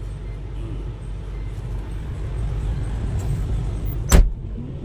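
Excavator's diesel engine running steadily with a low rumble, and one sharp knock about four seconds in.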